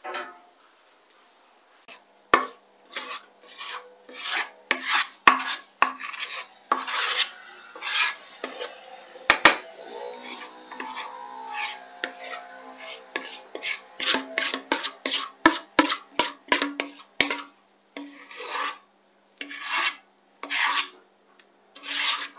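A utensil scraping repeatedly against a bowl as cake batter is mixed and scraped out into a baking tray, in short rasping strokes that come faster in the second half.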